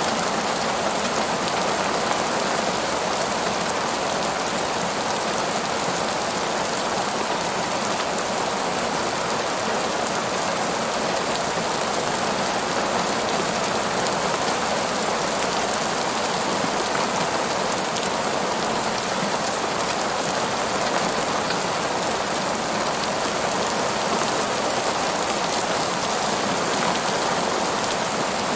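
Steady rain falling on tree leaves: an even, unbroken hiss of many small drops.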